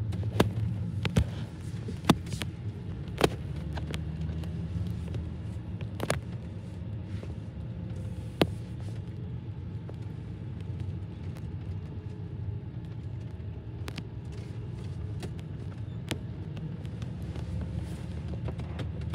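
Mercedes SLK280's V6 engine running with a steady low rumble, with sharp clicks now and then. The faint steering squeak being hunted is not heard.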